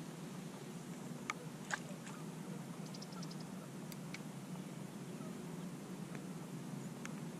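Spinning reel being cranked during a lure retrieve: a few small sharp clicks and a quick run of fast ticks about three seconds in, over a faint steady low hum.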